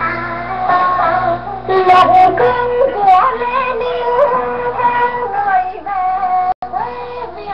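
Music with a singing voice received on a Philco 39 vacuum-tube radio, its sound cut off above the treble as an AM broadcast is. The sound drops out completely for an instant about six and a half seconds in.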